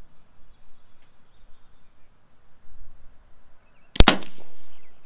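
One shot from a .22 Evanix Viper semi-auto PCP air pistol fitted with a moderator, a single sharp report about four seconds in with a brief tail.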